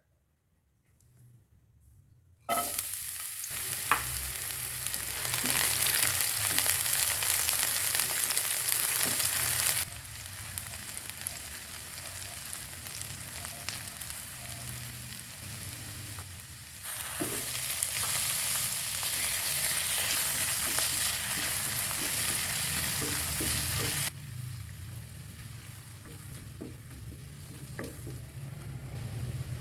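Food sizzling in hot oil in a pan, with occasional clicks and scrapes of stirring. The sizzle starts abruptly a couple of seconds in after near silence and jumps up and down in loudness several times at cuts.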